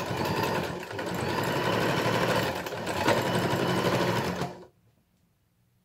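Janome sewing machine stitching a buttonhole with its buttonhole foot, running steadily, then stopping abruptly about four and a half seconds in.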